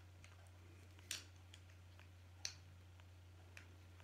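Quiet handling sounds of a plastic Barbie mermaid doll and its tulle fin: two short, sharp crinkling clicks about a second and two and a half seconds in, with a few fainter ticks, over a low steady hum.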